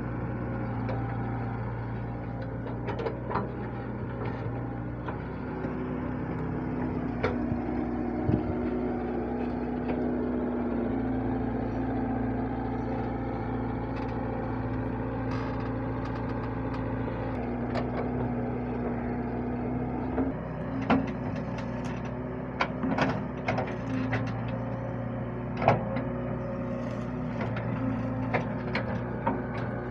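Wheeled excavator's diesel engine running steadily while it digs, its note shifting as the hydraulics take load. Scattered sharp knocks from the bucket working the soil, most of them in the last third.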